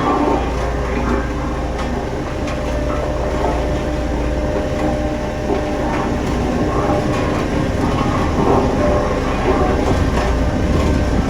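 Heavy diesel construction machinery running steadily, with a strong low rumble.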